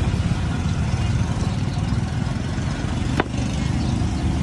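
Steady low rumble of motor traffic with a broad hiss over it, and a single sharp click about three seconds in.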